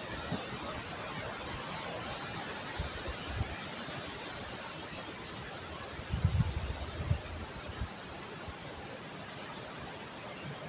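Steady high-pitched chirring of insects, with a low rushing haze beneath it; a few short low thumps, the loudest cluster about six to seven seconds in.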